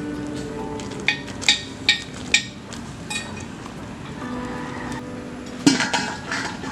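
A metal utensil clinking against a cooking pot: four sharp clinks in the first couple of seconds, one lighter one, then a quick run of clinks near the end.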